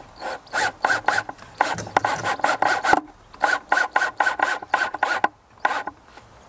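A hand tool rasping back and forth on wood in quick strokes, about four a second, with a short break about three seconds in and a single last stroke near the end.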